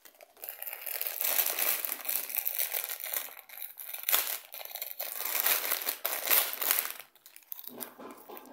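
Clear plastic bag crinkling in irregular rustles as hands handle it and work its top open, going quieter for a moment near the end.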